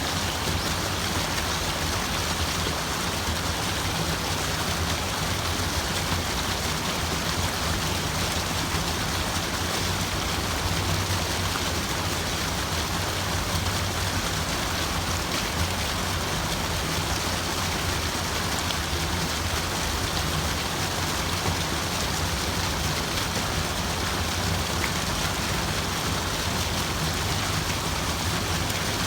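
Running water, a steady even rush without breaks or single drips standing out.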